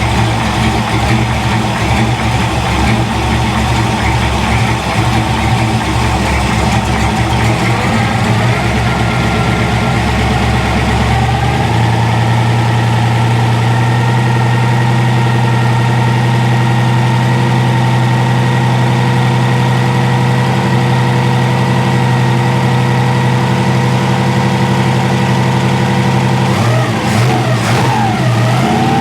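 A 454 big-block V8 running, uneven at idle at first, then brought up to a steady higher rpm about eleven seconds in and held there, with a brief drop and recovery in revs near the end. The engine is being held at raised rpm so its total ignition advance can be read with a timing light.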